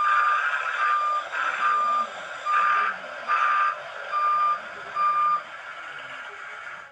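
A vehicle's reversing alarm beeping seven times at a steady pitch, about one beep every 0.8 s, over a hissing background noise.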